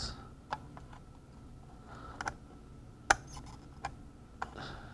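Light, scattered clicks and taps, about five of them, from small tools such as a soldering iron and tweezers being worked against a circuit board, over a faint steady hiss.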